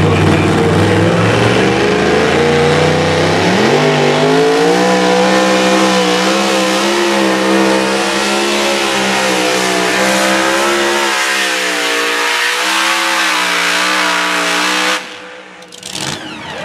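Two-wheel-drive pulling truck's engine at full throttle during a pull. The revs climb about four seconds in, then hold high with a wavering pitch as it drags the sled, and the engine sound drops away suddenly about fifteen seconds in at the end of the pull.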